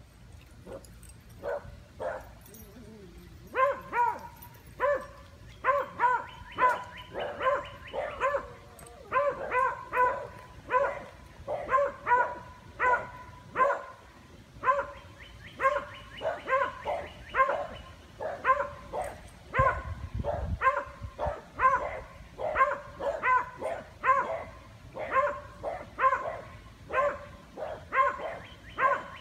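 Beagles barking at a white-tailed doe: many short, high-pitched barks in quick runs with short pauses, beginning a few seconds in.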